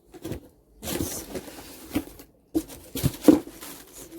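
A cardboard box and its packaging being handled and opened: irregular knocks, rustling and scraping, with the loudest knock a little past three seconds in.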